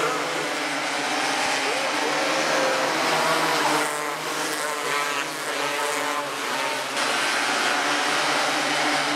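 Several 270cc micro sprint car engines running hard together as the cars race around a small dirt oval, a dense steady engine sound whose pattern shifts about halfway through as cars pass.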